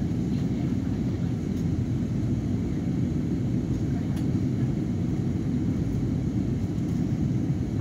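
Jet airliner cabin noise heard from a window seat by the wing: engines and rushing air as a steady, even low hum during the descent to land.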